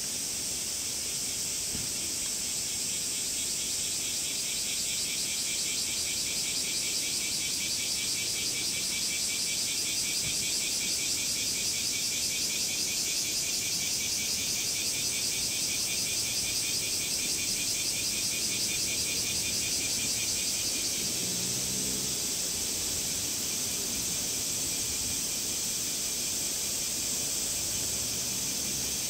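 Cicadas buzzing in a steady, finely pulsing drone; part of the chorus drops out about two-thirds of the way through.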